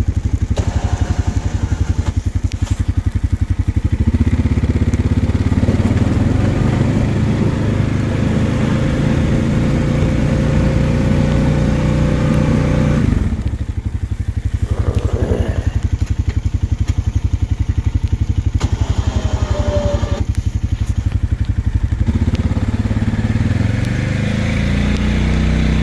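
Honda Rubicon 520 ATV's single-cylinder engine running under load while plowing snow. The revs rise about four seconds in, drop off briefly about thirteen seconds in, then pick back up.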